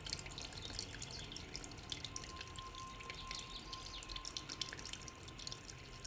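Water dripping and trickling: many small, irregular drops, with a faint held ringing tone in the middle.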